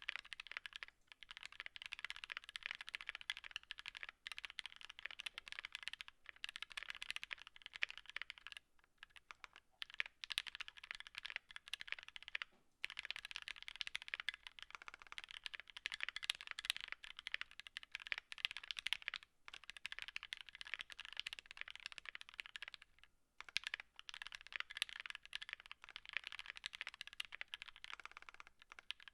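Fast continuous typing on a 60% mechanical keyboard with lubed and filmed Gateron Ink Black v2 linear switches in a brass plate and aluminum case, a dense patter of keystrokes with several short pauses.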